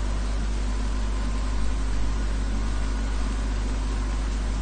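Steady low hum under an even hiss, unchanging throughout, with no distinct events: the room's background noise, as from a fan or air conditioner and electrical hum.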